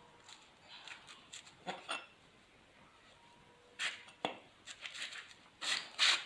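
Scattered clicks, clinks and scrapes of hands working the metal parts and cable of a home-made arc welding electrode holder, loudest about four seconds in and just before the end.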